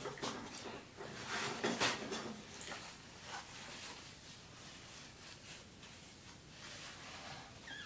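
Short rustling and scraping noises with a few light clicks, loudest around two seconds in, then quieter handling sounds.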